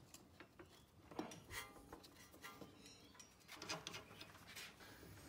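A few faint metallic clinks and knocks as a Mercedes W164's front sway bar link is worked into its mount by hand.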